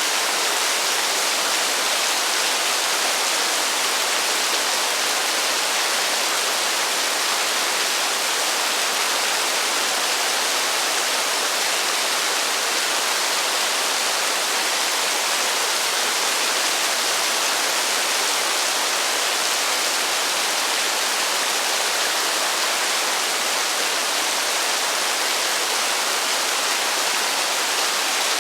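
Heavy rain falling as a steady, even hiss, with no thunder and no separate drops standing out.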